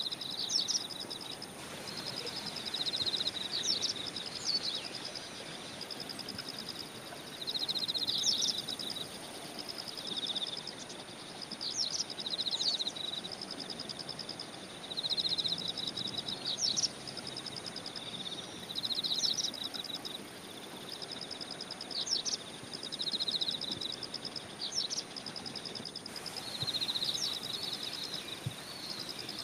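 Countryside ambience: a high, rapidly pulsing trill in phrases of a few seconds, with short rising bird chirps every couple of seconds over a steady high hiss.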